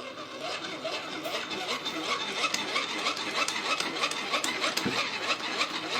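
Hand-cranked insulation tester (megger) being cranked to test a circuit's insulation resistance. Its generator gearing whirs steadily with fine rapid clicking, building up over about the first second.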